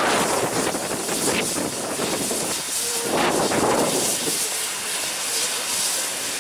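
Steam locomotive LMS Jubilee 45596 Bahamas, a three-cylinder 4-6-0, letting off a steady hiss of steam, with a louder surge about three seconds in.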